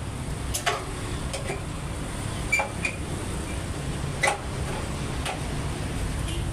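A few sharp metallic clinks, like tools or metal parts knocking together, about five in all and the loudest near the middle. Under them runs a steady low rumble of road traffic.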